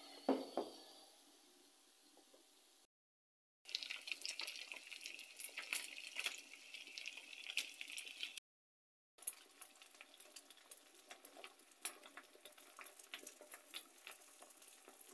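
An egg frying in hot oil in a skillet: steady sizzling with many sharp crackles and pops. There is a knock right at the start, and the sound drops out completely twice for under a second.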